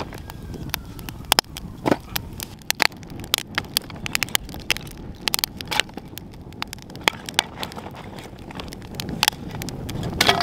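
Wood fire of split kindling crackling, with irregular sharp pops and snaps several times a second over a low rumble.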